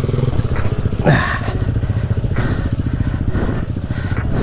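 Enduro dirt bike engine running at low revs over technical ground, with a short louder burst of sound about a second in.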